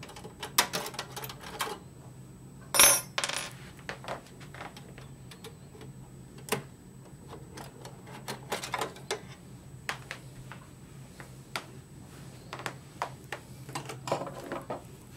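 Metal clicks and clinks of hands working on parts at the rear of an open steel desktop computer case, with a louder metallic clatter about three seconds in.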